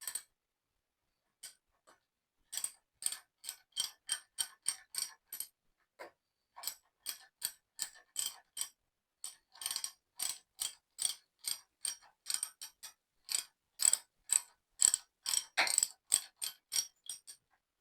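Socket ratchet clicking in runs, about three clicks a second, as it is swung back and forth to back out a handlebar riser bolt.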